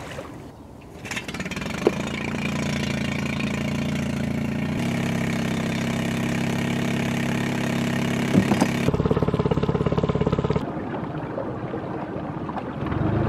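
Small boat's outboard motor starting about a second in and running steadily, picking up speed about five seconds in, with an abrupt change in its sound about nine seconds in.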